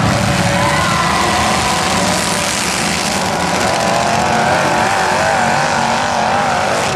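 Several demolition-derby pickup trucks' engines running loud and revving on a dirt track, with a high wavering whine over them that is strongest in the second half.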